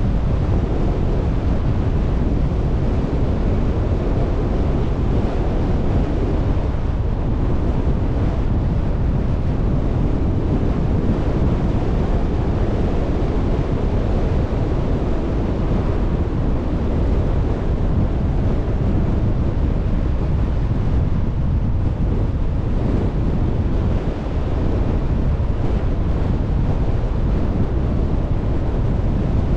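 Steady low rumble of a car driving, the road and wind noise of the moving vehicle, with wind buffeting the microphone.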